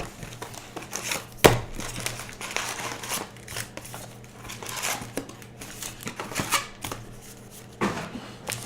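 Baseball card packs and cards being handled: crinkly wrapper rustling and cards sliding and flicking against each other, with one sharp snap about a second and a half in.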